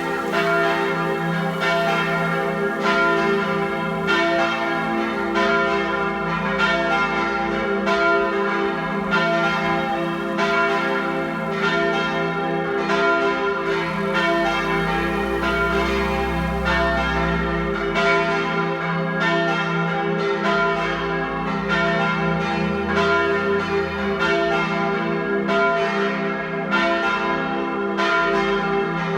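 Church bells of a parish church ringing a partial peal: several bells striking in close, overlapping succession, their tones ringing on into each other. A low rumble rises twice under the bells near the middle.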